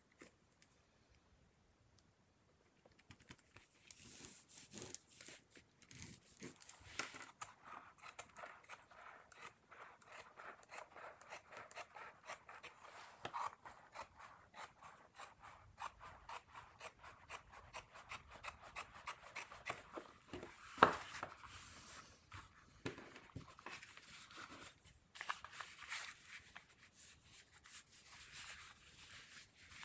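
Scissors cutting through a sheet of suede leather: after a few quiet seconds, a long, dense run of short snips and the rasp of the blades through the hide, with one louder click about two-thirds of the way through.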